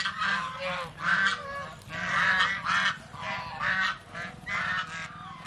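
A flock of domestic white geese honking over and over, several birds calling at once.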